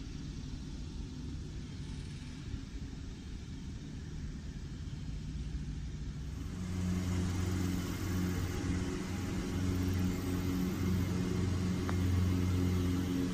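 Low outdoor rumble, then from about halfway a steady engine drone of a motor vehicle running nearby. Near the end comes a faint tap of a putter striking a golf ball.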